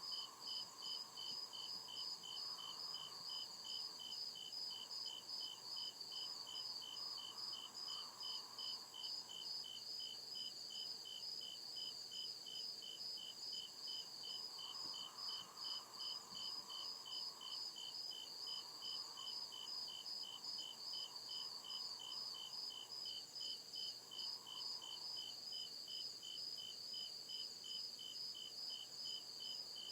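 Crickets chirping in a steady, even rhythm, two voices at two different pitches chirping at the same time.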